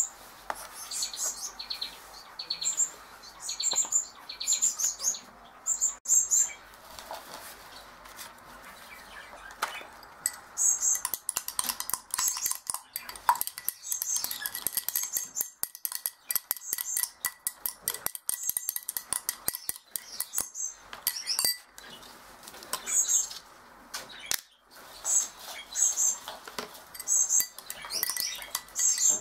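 A thin spoon clinking rapidly against a drinking glass while stirring hand-feeding formula, from about ten seconds in for around twelve seconds. Small cage birds chirp in short high bursts throughout.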